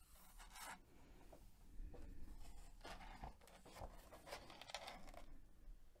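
Faint, irregular rustling and brushing of paper as the pages of a sticker activity book are turned and handled, stopping about five seconds in.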